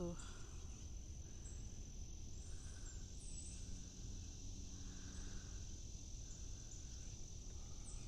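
Insects in a summer forest keep up a steady high-pitched trill, with a lower insect buzz swelling and fading about once a second.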